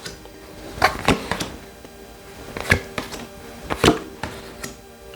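Tarot cards being handled and set down on a table: several sharp knocks and snaps a second or so apart, over soft background music.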